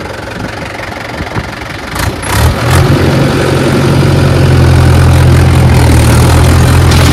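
Tractor diesel engine idling, then a few short clicks, and about two and a half seconds in the engine speeds up and settles into a louder, steady run.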